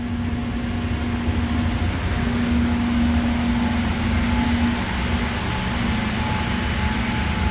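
Steady machine hum of a CNC router: a low rumble with a steady humming tone, and a fainter higher tone joining about halfway through.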